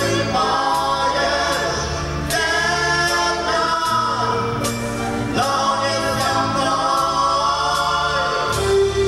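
Music: a song passage of long held, choir-like vocal notes over a bass line and instrumental backing.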